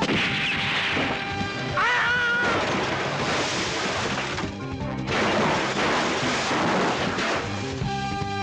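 A car rolling over down an embankment: loud crashing and scraping of metal on earth and rock in two long stretches, with a short lull about four and a half seconds in. Music plays underneath and takes over near the end.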